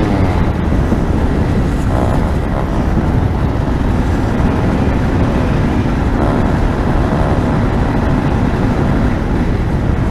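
Aprilia RS 125 two-stroke single-cylinder engine pulling hard at speed, with heavy wind rush on the microphone. Faint rising engine notes come through about two seconds in.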